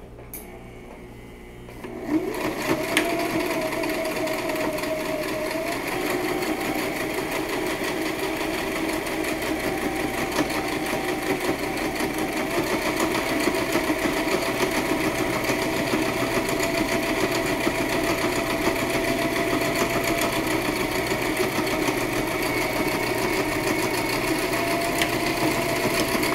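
Electric domestic sewing machine starting up about two seconds in and stitching a seam through layered fabric at a steady run, its hum shifting slightly in pitch a few times as the speed changes.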